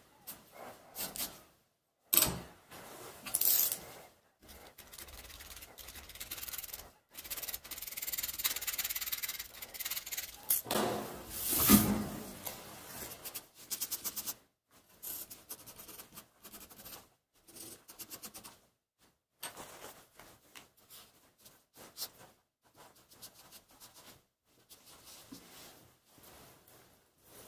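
Gloved hand rubbing across the flat of a steel circular saw blade, with scratchy strokes of a pencil and then a marker pen drawing on the metal. The sound comes in short, irregular strokes, with a longer, louder stretch of rubbing a little before the middle.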